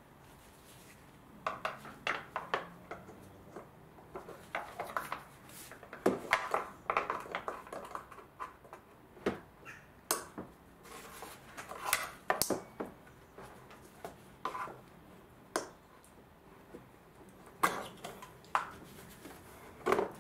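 Irregular hard plastic clicks and knocks as a VW Golf Mk5 headlight unit is worked loose and its wiring plug is unclipped, beginning about a second and a half in.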